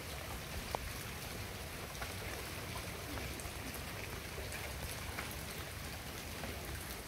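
Steady rain falling onto floodwater, with scattered drop ticks and one sharper click about three-quarters of a second in.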